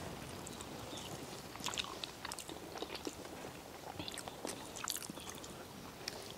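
Faint eating sounds: chewing and small mouth smacks, with scattered soft clicks of fingers mixing chicken curry and ragi sangati on banana leaves.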